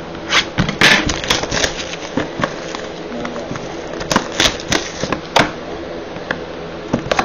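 A sealed 2016 Bowman Inception trading-card box being opened by hand: irregular crackling, tearing and sharp snaps of its wrapper and cardboard, loudest about a second in and again between four and five and a half seconds in.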